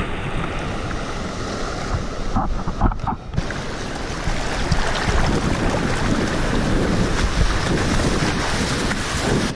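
Shallow surf washing and foaming around the wader's legs, with wind buffeting the body-worn camera's microphone; the sound briefly drops out about three seconds in.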